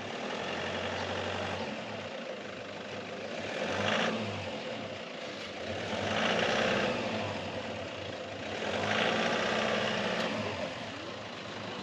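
Toyota pickup's engine pulling under load up a steep slope of deep mud, rising and falling in three surges of revs a couple of seconds apart.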